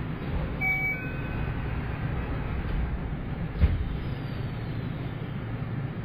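Inside a Yokohama Municipal Subway 3000R-series car: the steady low rumble of the train. A brief high chime-like tone comes about a second in, and a single sharp knock about three and a half seconds in.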